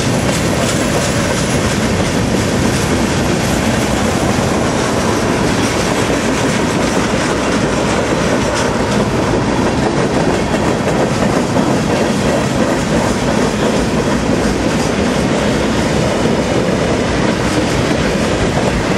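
CSX freight train cars rolling past close by: a steady, loud noise of steel wheels running on the rails.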